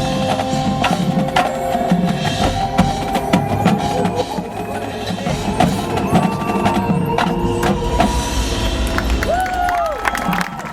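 Marching band playing: held notes over busy drum and mallet percussion, with a short swooping pitched sound near the end.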